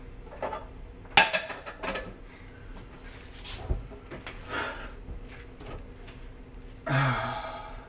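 Clatter and knocks of items on a kitchen counter: a sharp clatter about a second in, then several softer knocks and rubs, and a louder scraping rustle near the end.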